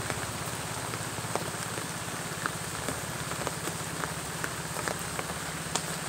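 Steady rain falling, an even hiss with individual drops landing as sharp ticks about two a second.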